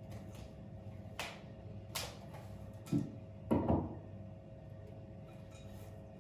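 A few short clicks and knocks, the loudest a heavier knock about three and a half seconds in, over a steady low hum.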